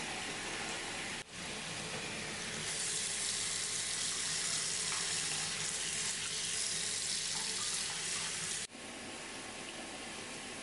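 Tap water running steadily into a bath. The sound breaks off sharply about a second in and again near 9 s, and it is louder and hissier between those breaks.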